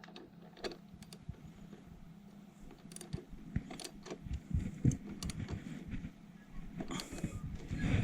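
Light metallic clicks and clinks of a socket and hand tools on the bike's brake line fittings, coming irregularly, with one sharper click about five seconds in.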